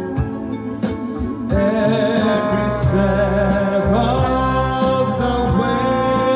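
A singer performing a song into a microphone over accompaniment through a PA loudspeaker. The accompaniment fills out about a second and a half in, with bass notes joining.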